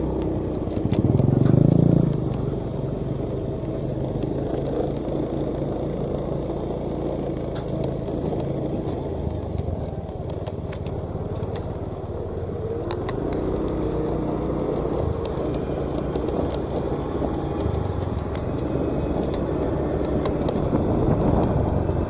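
Truck engine running steadily as the truck hauls a combine harvester along a dirt road, with a brief rise in pitch about halfway through.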